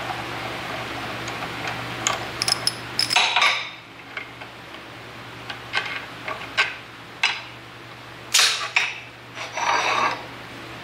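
Steel hand tools (a thread tap, a ratchet and a steel tap-guide block) clinking and clanking irregularly against a thick steel plate as they are handled and set down, about a dozen sharp metallic knocks in all, the loudest near the middle and end.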